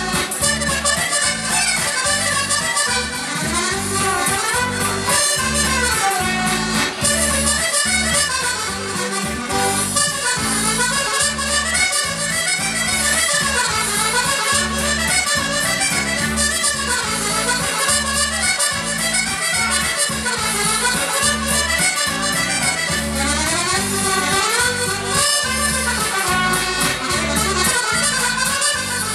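Chromatic button accordion playing a lively bal-musette tune, with fast runs of notes rising and falling over a steady, pulsing bass beat.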